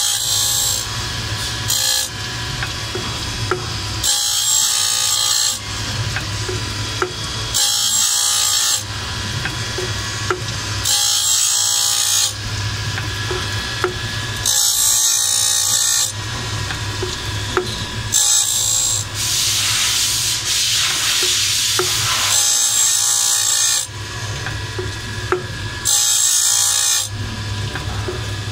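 CNC band saw blade grinder: a steady machine hum, with the abrasive grinding wheel hissing against each tooth of the variable-pitch blade in bursts of about a second, at uneven intervals of one to three seconds. One longer grind runs about two thirds of the way through.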